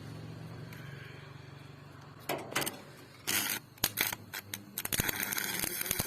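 Stick-welding arc: struck in a few short sputters about two seconds in, then held as a steady crackling sizzle from about five seconds on. A low hum fades out over the first two seconds.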